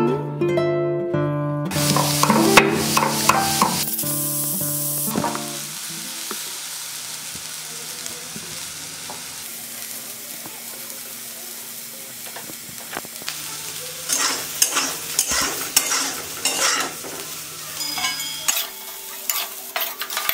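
Acoustic guitar music fades out over the first few seconds. Then a stone pestle grinds ingredients in a stone mortar, a steady gritty scraping, with a run of sharp knocks from pounding about two-thirds of the way through.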